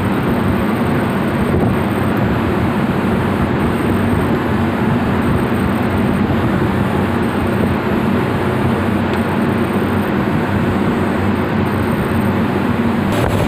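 Heavy machinery running steadily: a loud, constant drone with a strong low hum, which drops away shortly before the end.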